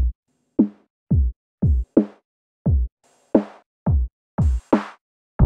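Electronic drum machine beat: about ten separate hits, deep kicks that drop in pitch alternating with sharper snare or clap hits, with short silences between them. A sustained bass and synth chords come in right at the end.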